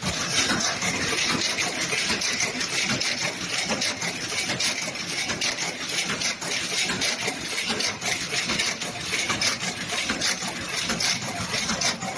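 Automatic tube filling and sealing machine running: a steady mechanical clatter of rapid clicks from its conveyor and tube-handling mechanisms.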